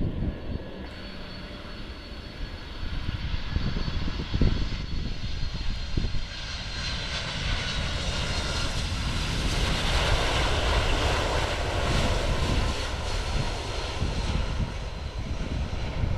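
Boeing 747-400's four turbofan engines at approach power as the jet flies low past. The whine and roar build to their loudest about two-thirds of the way through, with faint whining tones that fall slightly as it passes, over a low buffeting rumble of wind on the microphone.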